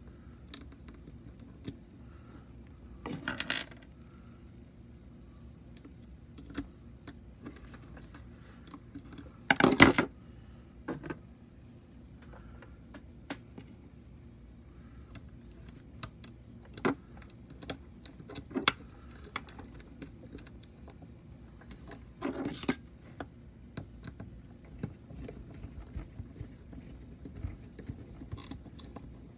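Small clicks and clatters of a toy train chassis and its wheels being handled and fitted by hand, with a few louder rattling knocks, the loudest about ten seconds in.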